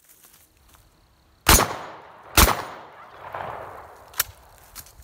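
Winchester 101 over/under 12 gauge shotgun fired twice in quick succession, both barrels, about a second apart, each shot echoing off the surroundings. A smaller sharp click follows about four seconds in.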